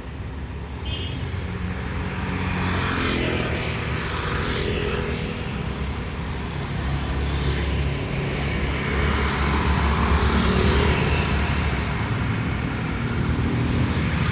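Road traffic passing close by: vehicle engines and tyre noise, swelling and easing as cars and motorcycles go by.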